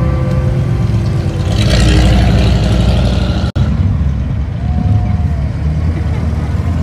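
Classic cars and pickup trucks driving slowly past, their V8-style engines giving a loud, steady low rumble. The rumble swells louder for a second or so about two seconds in, and the sound cuts out for an instant about halfway through.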